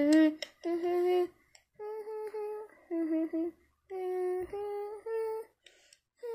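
Wordless vocalizing: a string of short, held notes at shifting pitches, with brief gaps between them.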